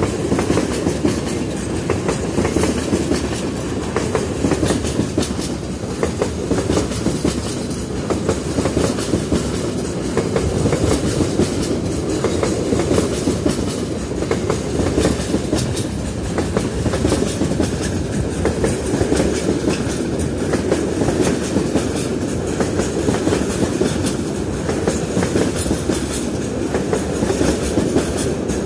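A long train rolling past, its wheels clattering steadily over the rails with a constant rumble and many fine clicks, unbroken throughout.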